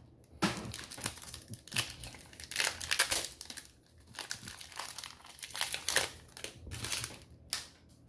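Foil wrapper of a Pokémon trading-card booster pack crinkling and crackling in irregular bursts as it is handled and opened.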